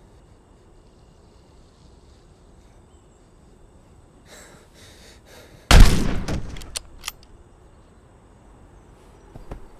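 A single loud shotgun blast about halfway through, dying away over about a second, followed by two sharp clicks.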